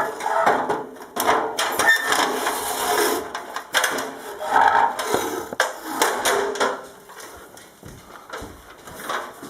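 Knocking, scraping and clattering of a ladder being carried and set up, busy and loud for about the first seven seconds, then only a few light knocks.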